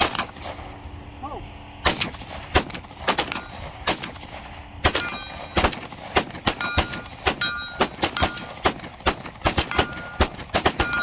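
Gunfire at a shooting range: a shot at the start, then single shots about every half second, and from about five seconds in a fast, uneven string of shots that overlap.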